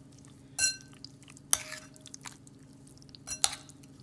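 A metal utensil stirring raw shrimp through thick batter in a ceramic bowl: wet stirring with three ringing clinks of the utensil against the bowl, about half a second, a second and a half, and three and a half seconds in.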